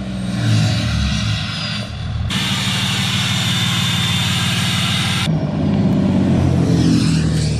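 The 5.9 Cummins diesel of a 2003 Dodge Ram, fitted with a BD Howler VGT turbo, running in three cut-together clips. In the middle clip it idles at the tailpipe with a steady high turbo whistle over the engine. In the clips before and after, the truck is driving.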